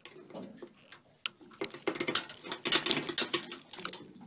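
Irregular clicks, taps and rustles of a crab being worked by hand out of a plastic mesh crab net, claws and net knocking together. The crab looks like a blue swimmer crab.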